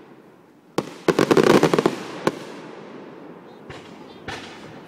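Fireworks exploding: a sharp bang, then a rapid crackle of many pops for about a second, another sharp bang, and two fainter pops near the end.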